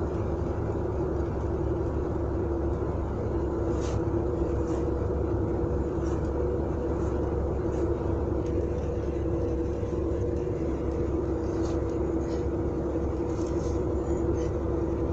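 GAZ-3102 Volga car driving steadily on a road: an even engine and road drone with a constant hum, and a few faint light ticks or rattles scattered through it.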